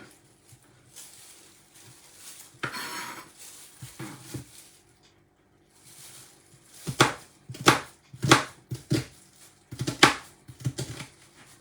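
A knife chopping on a cutting board: about six sharp chops, roughly one every two-thirds of a second, in the second half, after a brief scraping rustle a few seconds in.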